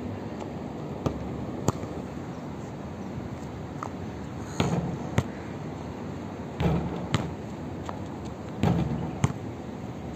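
A basketball striking hard surfaces: sharp thuds, mostly in pairs about half a second apart, several times over a steady background hum.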